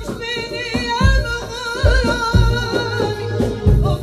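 A woman singing into a microphone, her amplified voice wavering in ornamented phrases, over a hand drum beating a steady rhythm.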